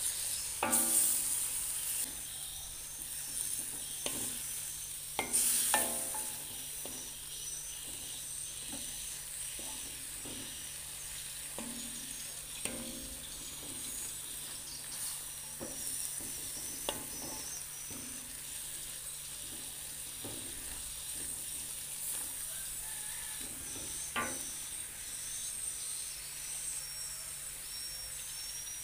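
Pounded cassava leaves sizzling in a wok while a metal spatula stirs and scrapes them around the pan in irregular strokes. The loudest scrapes come about a second in and about five seconds in.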